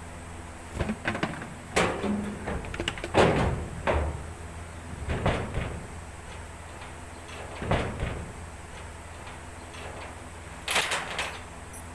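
A series of separate knocks and clatters, like hard objects being handled and set down, the loudest about three seconds in, over a steady low hum.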